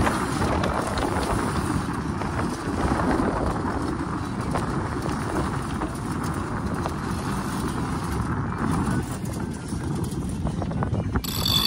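A sailboat's mainsail being lowered: the sail cloth flaps and rustles in the breeze, with wind buffeting and irregular knocks.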